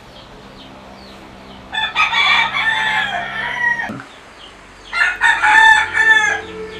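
A rooster crowing twice: a long crow about two seconds in that ends on a falling note, then a shorter one about five seconds in.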